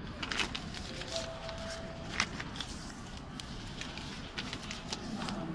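Scattered light clicks and rustles of desk work: laptop keys being tapped and paper banknotes being handled, with a faint short tone about a second in.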